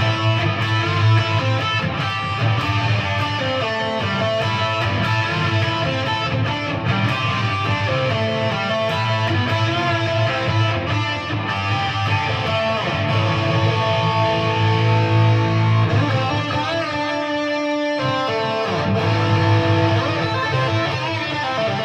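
PRS SE Hollowbody II electric guitar playing a riff through a Peavey Vypyr modelling amp on its high-gain 6505 setting, with the flanger switched off. The notes ring on and change steadily.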